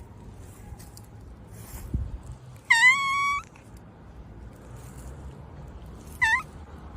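Domestic cat meowing: one long meow about three seconds in, and a short one near the end. A dull thump comes shortly before the long meow.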